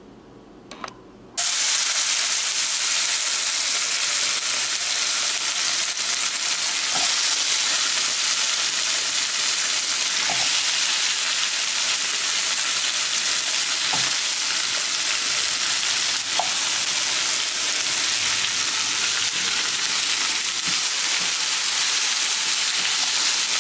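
Electric blender switched on about a second and a half in, then running steadily with a loud, even whirring hiss.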